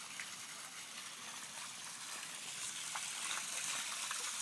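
Water gushing and splashing from a short white drain discharge pipe onto flooded ground, the rush slowly growing louder.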